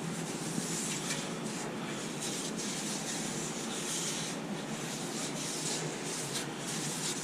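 Steady rubbing and rustling noise, with soft scraping flickers running through it.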